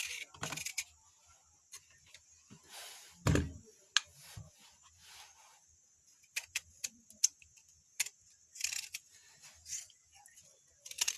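Knife cutting vegetables on a cutting board: irregular sharp taps of the blade on the board, with a few longer slicing crunches and one heavier thump about three seconds in.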